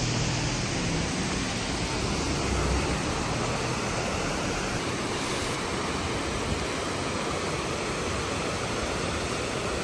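Steady rushing roar of a waterfall, even and unbroken.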